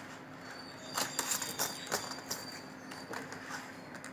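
Small sharp plastic clicks and taps, bunched about a second in with a few more later, as a laptop keyboard's ribbon cable and connector flap are handled and pushed into place.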